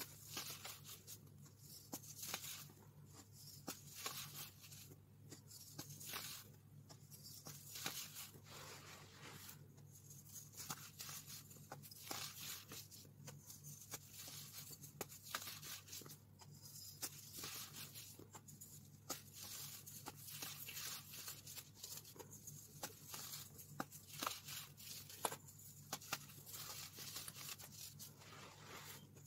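Fingers crushing and crumbling soft blocks of baking soda over a bed of loose powder. The sound is a soft, gritty crunching and hiss that comes in repeated short bursts every second or two.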